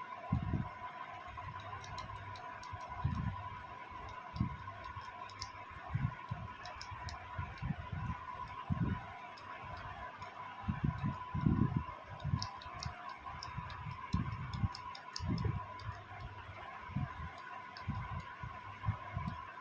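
Scattered light clicks and ticks over irregular low bumps, like small objects being handled, with a faint steady high hum underneath.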